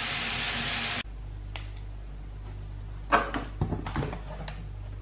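Hot oil sizzling in a stainless steel sauté pan, cutting off abruptly about a second in. A few light clicks and knocks follow in the second half.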